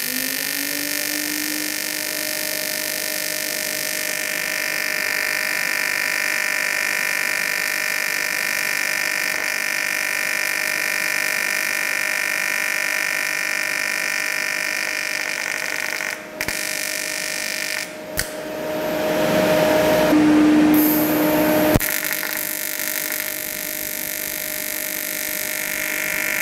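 AC TIG welding arc on aluminium from a Parweld XTM211Di inverter welder set to 50 Hz AC frequency, buzzing steadily as a bead is run. Its tone rises and settles in the first second or so. It briefly dips twice around the middle and turns louder and rougher for a few seconds later on.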